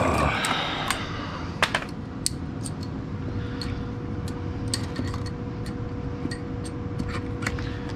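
Carrier two-stage gas furnace starting on a call for heat, its motor giving a steady hum that picks up a clearer tone about halfway through. Over it, irregular light clicks and knocks of hand tools being handled in a soft tool bag.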